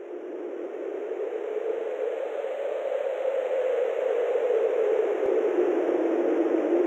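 Steady wind-like rushing noise that fades up from silence and grows gradually louder, with its weight low to mid in pitch; it plays as the intro sound effect under the logo.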